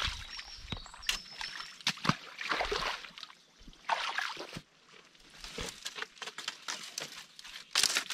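Irregular rustling and crackling of branches and leaves, with scattered clicks, as someone works through brush at a tree. A few short, thin, high bird chirps come in the first second.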